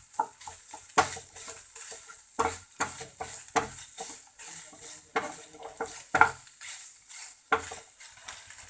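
A spoon stirring mashed potato and paneer stuffing in a pan on the stove, with irregular clicks and scrapes of the spoon against the pan over a faint steady sizzle.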